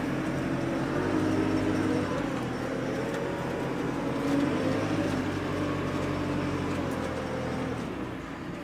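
An engine running steadily, its pitch wavering slightly, easing off near the end.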